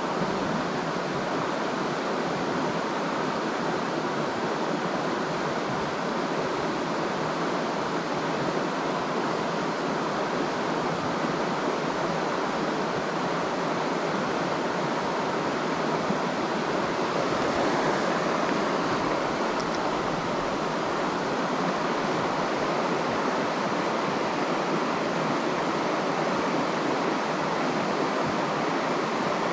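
River water rushing steadily, an even hiss with no pauses.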